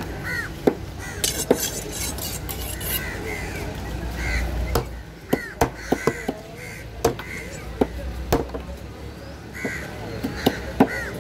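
A heavy cleaver chopping through fish flesh and bone onto a wooden table in sharp, irregular knocks. Crows caw repeatedly throughout.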